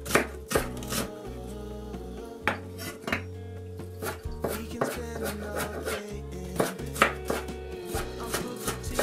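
Chef's knife chopping a red onion on a bamboo cutting board: sharp knocks of the blade against the board at an uneven pace, about one or two a second, with background music underneath.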